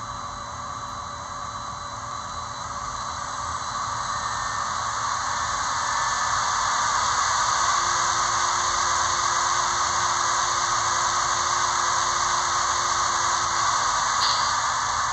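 Märklin 39871 Railjet Taurus model locomotive's sound decoder playing its compressed-air effect through the model's small speaker: a hiss of air that swells over the first few seconds and then holds steady. There is a brief click near the end.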